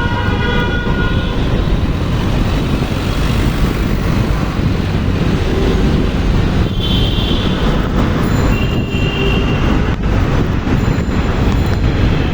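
Metro train running at a station: a loud steady rumble, with a few brief high tones over it.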